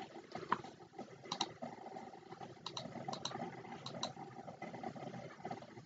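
Several faint, sharp computer mouse clicks, mostly in quick press-and-release pairs, over a low steady background hum.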